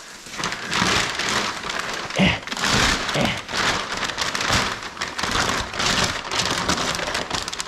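Plastic packaging crinkling and rustling as it is handled, a dense crackle with a couple of light bumps about two and three seconds in.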